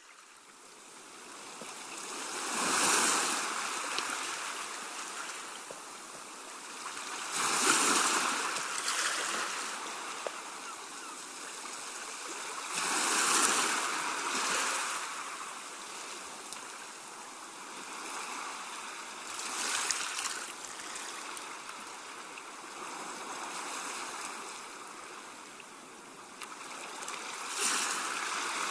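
Sea waves washing onto a shore: a steady hiss of water that swells into a louder rush and drains away, about five times, roughly every five to six seconds.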